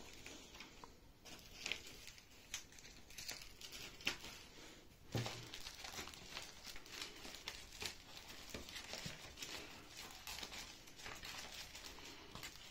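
Faint handling noise: steady rustling and crinkling with many small ticks, a sharper tick about four seconds in and a soft thump about a second later.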